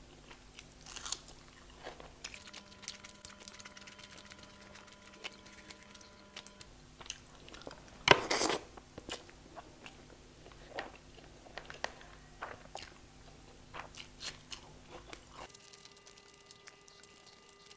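A person chewing and smacking mouthfuls of chicken biryani eaten by hand, with many short wet mouth clicks. A louder burst comes about eight seconds in as a handful of rice is pushed into the mouth.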